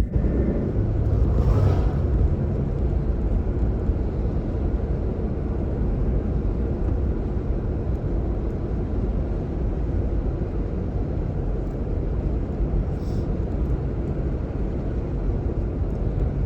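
Steady low rumble of a pickup truck driving along a road, with engine and tyre noise and no clear rises or falls in pitch.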